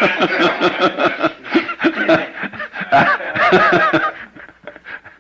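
Live audience laughing at a joke, several voices chuckling together and dying away about four seconds in.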